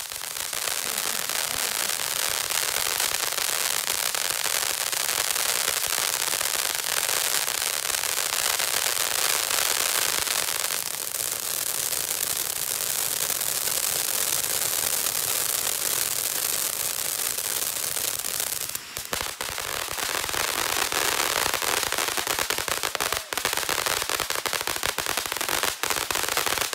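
Ground fountain firework spewing sparks: a steady hiss packed with dense crackling, with a couple of brief lulls in its second half.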